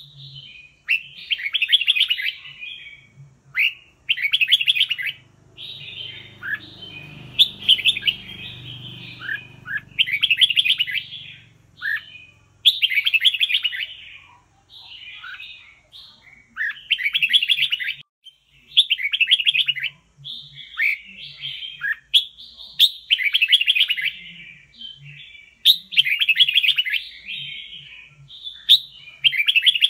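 Red-whiskered bulbul singing: short whistled phrases repeated every one to two seconds with brief gaps between them. A faint low rumble rises and fades in the background in the first half.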